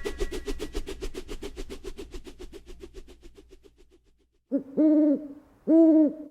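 Soundtrack music with a quick pulsing beat fading out, then two short, loud hooting tones at a steady low pitch near the end.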